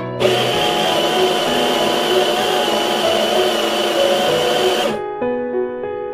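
Electric espresso grinder grinding coffee beans into a portafilter, a steady high whine that runs for about four and a half seconds and then stops. Soft piano music plays underneath.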